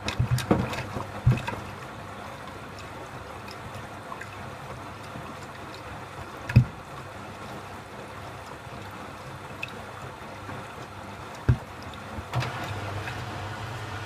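Beko front-loading washing machine in its rinse: the drum turns the wet load through the rinse water, which sloshes and splashes over a steady motor hum. Several heavy thumps as the clothes drop, the loudest about six and a half seconds in.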